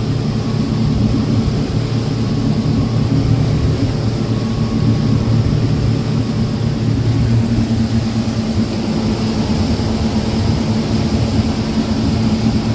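Motorboat engine running at cruising speed under way: a steady low drone mixed with the rush of wind and water, its tone shifting about seven seconds in.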